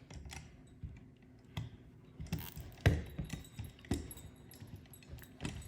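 Irregular plastic clicks and small taps as the power wire is coiled and cinched with a small plastic cable tie, with the loudest click about three seconds in.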